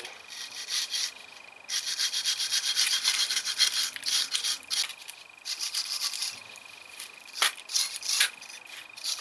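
A brush scrubbing dirt and rust off old metal brake parts, in quick back-and-forth scratching strokes, with short pauses between runs.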